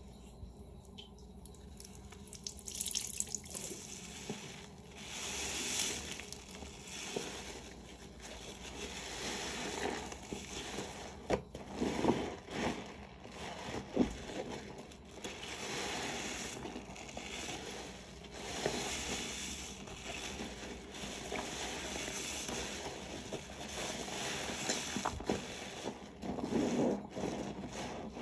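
Soapy sponge being squeezed and worked with water in a sink: wet squelches and drips in swells every second or two, with a couple of sharper wet knocks near the middle.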